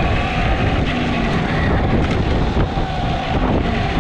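Wind buffeting the microphone of a moving action camera, a dense low rumble, with a steady whining tone running through it.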